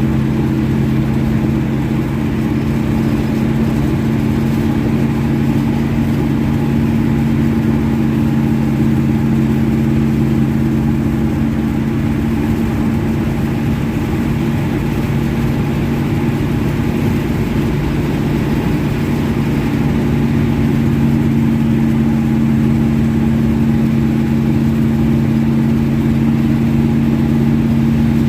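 1970 Chevelle's engine, fed by a Holley 850 double-pumper carburetor, running steadily at an unchanging speed.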